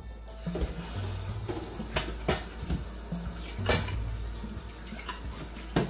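Background music with a steady repeating bass line. Under it, tap water runs into a stainless steel sink, and metal cookware, including a pressure cooker lid, gives a few sharp clinks as it is washed.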